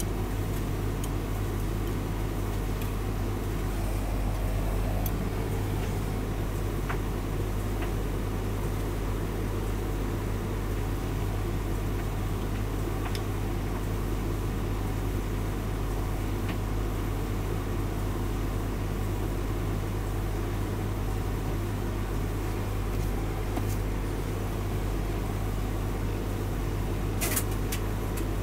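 Hotpoint tumble dryer running with a load: a steady motor hum as the drum turns, with one click near the end.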